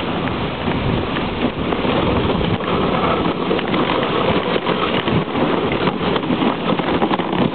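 Dog sled runners hissing and scraping over snow: a steady rushing noise with many small crackles throughout.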